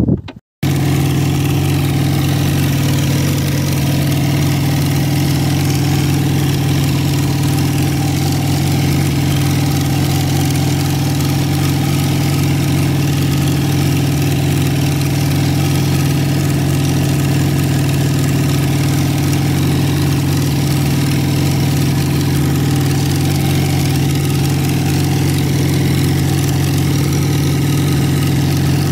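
A boat engine running steadily at one unchanging speed. It starts abruptly after a short silent break about half a second in.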